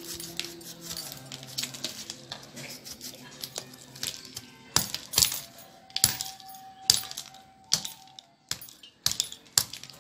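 Kitchen knife slicing the skin off a young raw jackfruit in short strokes, each cut a sharp crisp click. The strokes come louder and more often from about five seconds in. Faint music plays underneath.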